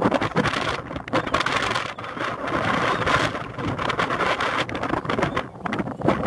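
Wind buffeting the microphone in gusts, a rough, uneven rumble and hiss that swells for a couple of seconds in the middle.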